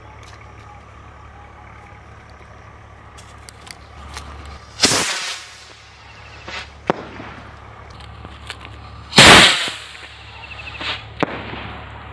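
Firework rocket fired from a bottle by an electric igniter: it goes off with a short sharp whoosh about five seconds in, then a louder bang about nine seconds in as it bursts overhead, with a few small pops in between and after.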